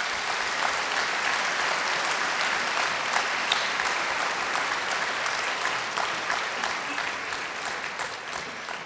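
Audience applauding: dense, steady clapping from a large crowd that begins to die away near the end.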